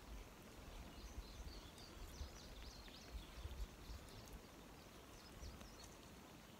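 Near silence: faint outdoor ambience with scattered small-bird chirps in the first half and a faint low rumble.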